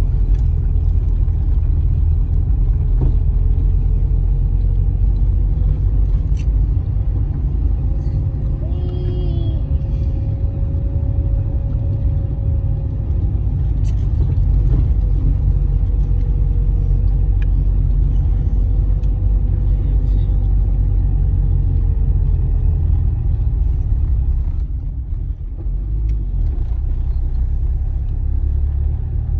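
Steady low rumble of a car driving on a road, heard from inside: engine drone and tyre noise, with a faint held hum that wavers slightly in pitch and fades out near the end.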